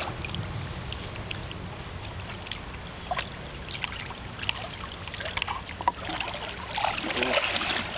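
Shallow creek water sloshing and trickling around a wading man's legs as he handles a gar, with a few short sharp splashes.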